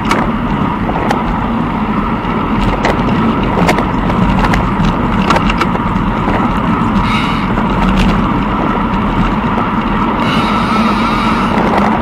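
Bicycle riding along a gravel tow path: steady rolling and wind noise with irregular ticks and rattles throughout, and a brief hiss about seven seconds in and again near the end.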